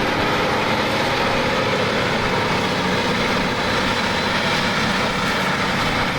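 Heavy vehicle engine running steadily, a deep low hum with no change in pace.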